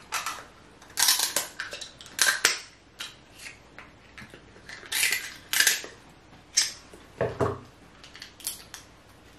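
Kitchen scissors snipping through boiled king crab leg shell: irregular sharp cracks and crunches of the shell splitting, with one duller knock a little past the middle.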